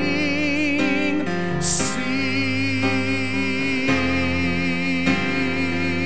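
Slow worship song: a voice singing long held notes with vibrato over piano chords that change every second or so. There is a brief hiss of a sung consonant about two seconds in.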